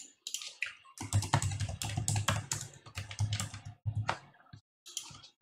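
Typing on a computer keyboard: a quick run of keystrokes from about a second in, then a short pause and a few last keystrokes near the end.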